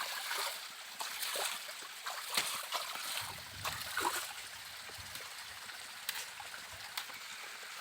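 Small jungle stream trickling and splashing steadily, with scattered light clicks and splashes.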